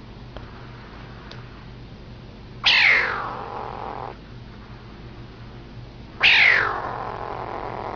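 Small cat giving two loud, drawn-out cries about three and a half seconds apart, each starting suddenly and sliding down in pitch; the second is longer.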